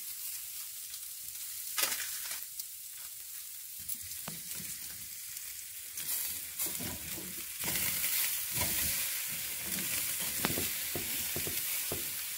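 Meat sizzling on a charcoal grill, a steady crackling hiss. Clicks and knocks from the meat being handled on the grate come through, busier in the second half.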